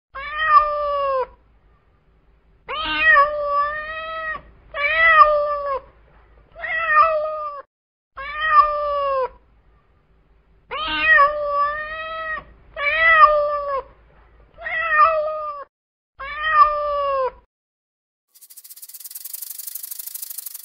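Domestic cat meowing repeatedly: about nine drawn-out meows, each a second or so long, with short pauses between. A faint raspy noise follows near the end.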